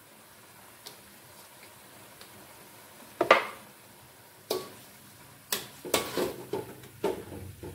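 Metal spatula knocking and scraping against a metal wok while stir-frying greens. There is one loud clank about three seconds in, then a few more, coming quicker in the last two seconds.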